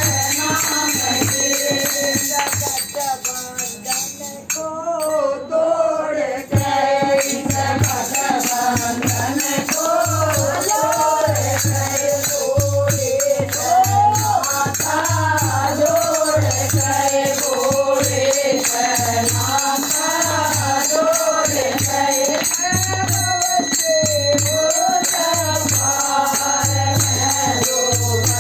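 A group of women singing a Hindu devotional bhajan together to a steady dholak drum beat, with jingling percussion throughout. The music thins out briefly a few seconds in, then the singing picks up again.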